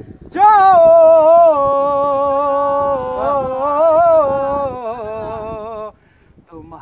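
A man singing an Urdu naat unaccompanied, holding one long, ornamented note that wavers and sinks gradually in pitch. He breaks off about six seconds in and starts the next phrase just before the end.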